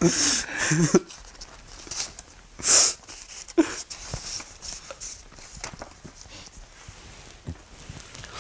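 A man crying: a choked, sobbing vocal sound in the first second, then a sharp, hissing sniffle about three seconds in, followed by quieter sniffs and faint rustling of the letter paper in his hands.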